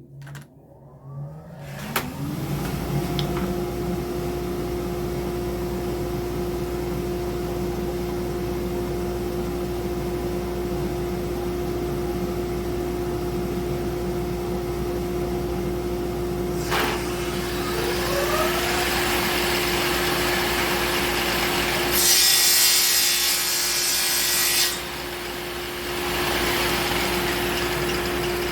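Shopsmith woodworking machine's motor winding up and running steadily with a clear hum; its pitch rises about two-thirds of the way through. Near the end a loud cut into wood lasts a few seconds and then stops.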